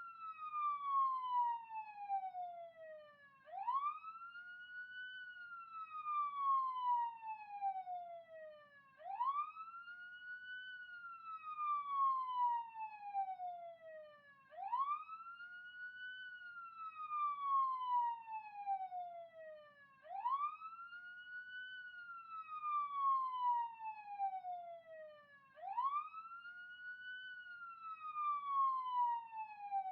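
Police siren in wail mode: each cycle climbs quickly in pitch, then slides slowly back down, repeating about every five and a half seconds.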